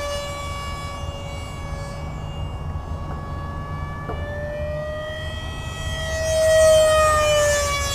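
Electric ducted fan of a BlitzRCWorks F-117 RC jet, a 64 mm fan unit, whining steadily at high throttle in flight. The whine swells louder about six seconds in as the jet passes close, rising a little in pitch and then dropping as it goes by.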